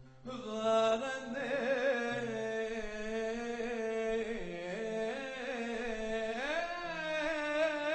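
A male cantor sings a bakashot hymn into a microphone in a long, ornamented melismatic line. The voice glides up in pitch about six and a half seconds in.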